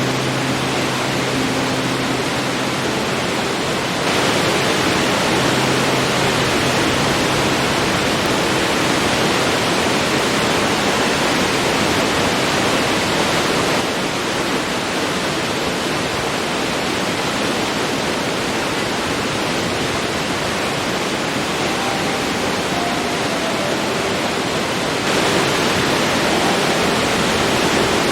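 Forest waterfall: a steady rush of falling, splashing water. The level steps up abruptly about four seconds in, drops slightly around fourteen seconds, and steps up again near the end.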